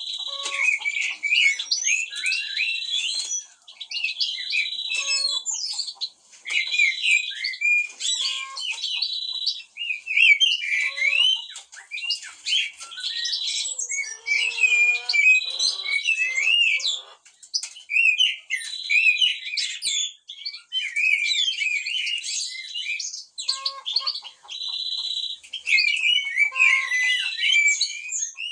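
Several songbirds, blackbirds among them, singing and chirping together. A buzzy trill at one pitch repeats about every two seconds, and a lower, harsh call breaks in around the middle.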